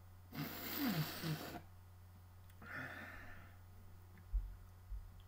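A man's loud breathy sigh close to the microphone, partly voiced, followed about two seconds later by a shorter, softer exhale. Two low thumps come near the end over a steady low hum.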